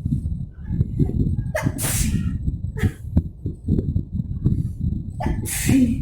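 A person sneezing hard three times, brought on by sniffing chickpea flour: one loud sneeze about a second and a half in, a short one near the middle, and another loud one near the end. A steady low rumble runs underneath.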